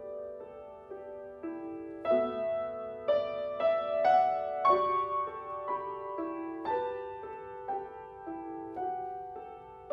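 Grand piano played solo: an unhurried melody of single notes and chords, each struck note ringing on into the next.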